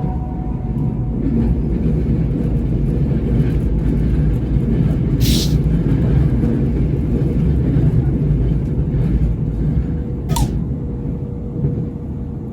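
Nankai Main Line electric train running, a steady low rumble with a faint steady tone in the last few seconds. Two short sharp hisses of air come about halfway through and again near the end.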